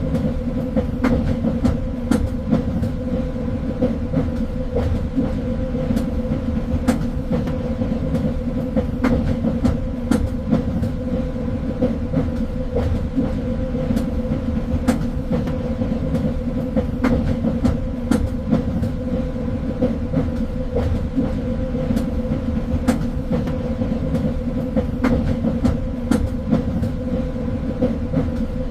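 Train running along the rails, heard on board: a steady low rumble with a constant hum, broken by irregular sharp clicks of the wheels about every second.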